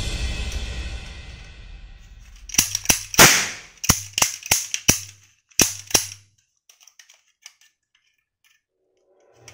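Background music fades out, then a toy gun fires about ten sharp shots over three and a half seconds, the loudest a little over three seconds in.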